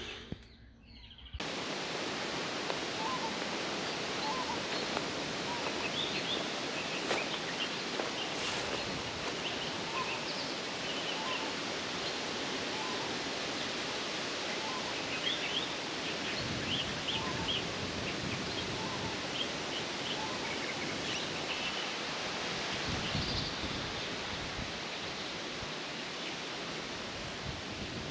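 Steady outdoor background hiss with many short, faint bird calls scattered through it. It starts suddenly about a second in, after near silence.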